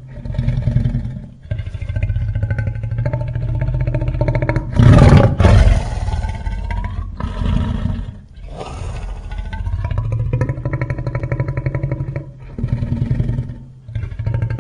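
Sound effects of the 1998 TriStar Godzilla creature: several long growls and roars separated by short breaks. The loudest roar comes about five seconds in.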